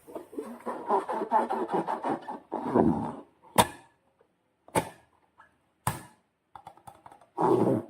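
Slime being squished and pressed by hand, with three sharp pops about a second apart in the middle and more squishing near the end.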